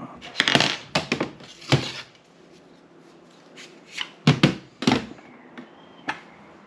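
Hand tools being picked up and set down on a stainless steel sink top, a string of separate metallic clicks and clinks with a quieter stretch in the middle.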